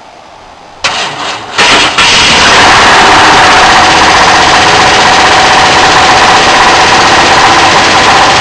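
The 1969 Ford F-100's 390 V8 cranks over briefly on the starter, then catches about two seconds in and runs loud and steady. This is the truck's rod-knocking engine.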